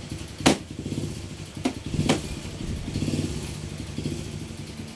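A motorcycle engine running steadily in the background, broken by a few sharp knocks and clatters of goods being handled on a shelf, the loudest about half a second in and two more around two seconds in.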